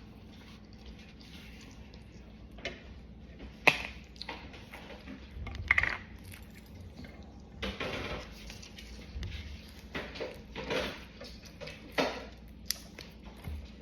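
Foam-ball slime (floam) being squished and pressed by hand: irregular sticky squishes and crackles, with a few sharp clicks or pops.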